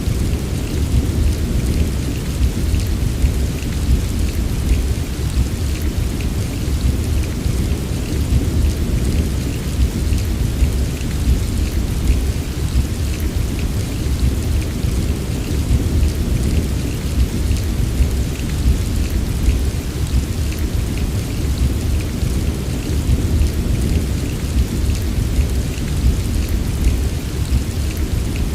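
Heavy rain falling steadily, with a continuous low rumble of distant thunder underneath and no separate claps.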